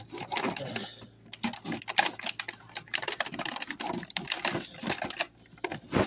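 Steel scissors snipping at a clear plastic blister tray and its ties, the plastic crackling and clicking in a quick, irregular run of sharp clicks, the loudest about two seconds in.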